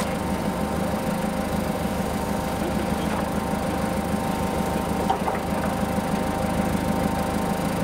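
Forklift engines idling steadily.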